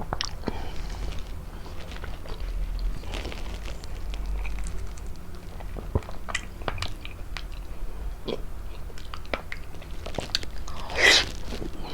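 Close-up mouth sounds of someone biting and chewing prickly pear fruit: scattered wet clicks and crunches, with one louder, longer bite near the end.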